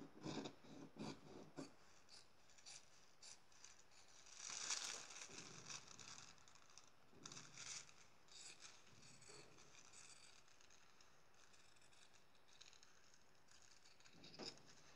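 Fabric scissors cutting through a paper sewing pattern pinned onto fabric: faint, irregular snips. The snips come thick in the first couple of seconds, with a longer rustle about five seconds in, then grow sparser.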